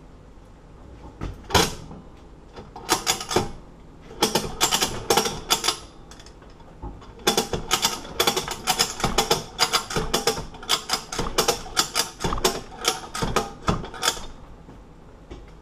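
Bolt cutters straining against the thick steel shackle of an ABUS 83/80 padlock: bursts of rapid sharp metallic clicks and creaks as the handles are forced, with the longest run in the second half.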